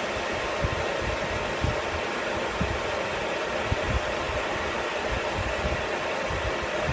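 Metal lathe running steadily while the spinning steel part is polished with an abrasive pad to knock off burrs, with irregular low thumps.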